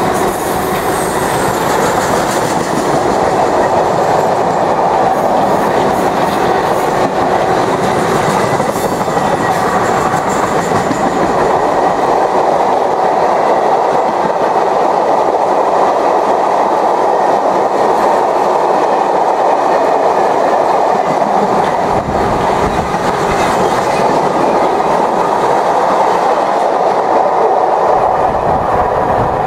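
Covered car-carrier wagons of a freight train rolling past, a steady loud noise of steel wheels running on the rails.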